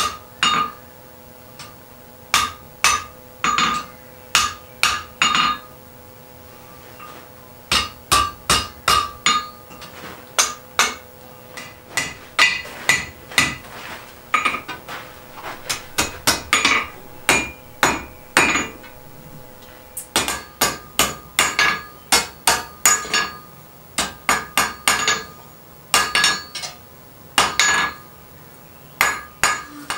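Blacksmith's hand hammer striking red-hot iron on an anvil, in runs of several quick blows with short pauses between. Each blow rings with a metallic tone as the end of a fire poker is forged.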